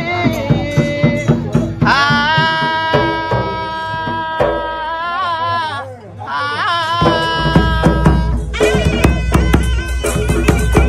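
A man singing a devotional folk song in long held notes. About eight and a half seconds in, large barrel drums beaten with sticks come in with a fast, loud beat.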